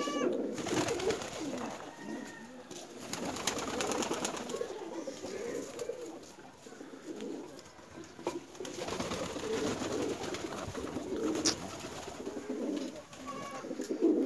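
Domestic fancy pigeons cooing continuously, a low warbling murmur from several birds. A few stretches of rustling noise come and go over it.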